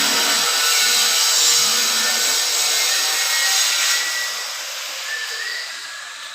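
A power tool running steadily, then winding down from about four seconds in.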